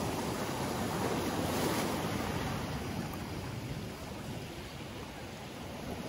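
Sea waves washing in over a pebble beach and around rocks: a steady surf rush that is strongest in the first two seconds and ebbs a little after about four seconds.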